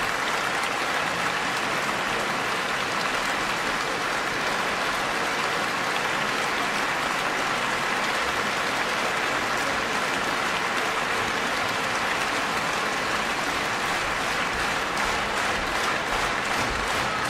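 Large concert-hall audience applauding steadily. Near the end the clapping starts to fall into a regular beat.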